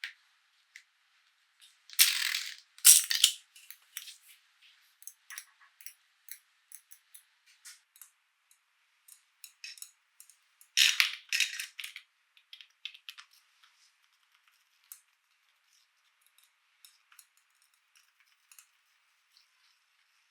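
Small plastic toy pieces and their packaging being handled: scattered light clicks and rattles, with two louder rustling bursts about two and eleven seconds in.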